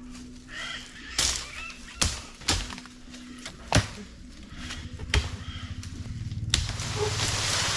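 Jamaican parrots (yellow-billed and black-billed amazons) squawking in the trees, with about six sharp chopping strikes at uneven intervals. Near the end a steady rushing noise takes over.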